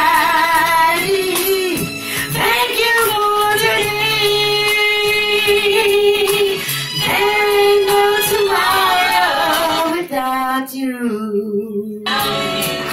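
A woman singing into a handheld microphone along with recorded music that has a steady beat, holding long notes with vibrato.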